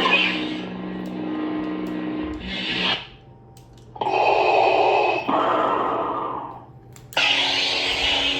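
Neopixel lightsaber with a Proffie sound board playing a soundfont through its speaker: a steady pitched hum under swing whooshes. The sound drops low about three seconds in, then comes back suddenly and loudly at about four seconds and again near seven seconds.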